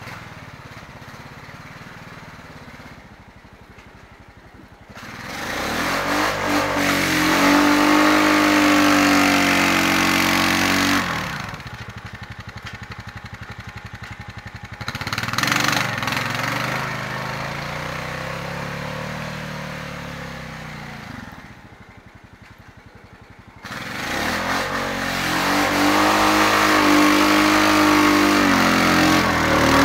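Honda Rubicon 520 ATV's single-cylinder engine pulling the machine on Camso X4S tracks through deep snow. It is fairly low for the first few seconds, then revs up loud about five seconds in, eases back for a while, and revs up loud again near the end, its pitch rising and falling with the throttle under load.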